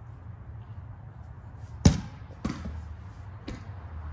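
A boy kicking a medicine ball: one sharp, loud thud about two seconds in, then two fainter thuds, over a steady low rumble.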